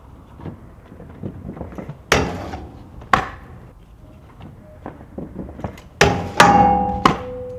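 Freestyle kick scooter wheels rolling on concrete, with two sharp knocks. About six seconds in the scooter slams onto a painted metal stair handrail and grinds down it. The hollow rail rings with a steady tone, and there is another hit a second later as the rider comes off.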